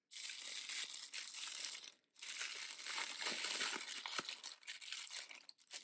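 Crinkly wrapping around a toy doll's accessories being handled and pulled open: steady crinkling in two long stretches with a brief pause about two seconds in.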